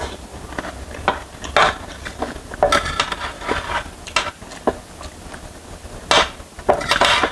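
A fork and spoon clinking and scraping against a metal tray while scooping up instant noodles, in irregular strokes, with the loudest scrapes about six seconds in and near the end.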